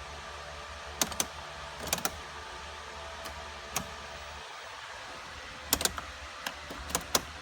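A Mazda Miata that won't start: a string of sharp clicks, some in quick pairs, over a steady electrical hum, with no engine cranking. The hum cuts out briefly about four and a half seconds in, then returns.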